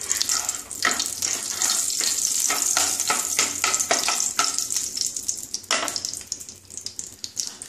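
Ghee melting and sizzling in hot oil in a non-stick wok, with a wooden spatula stirring and scraping the pan in quick strokes. The stirring stops about six seconds in, leaving only the sizzle.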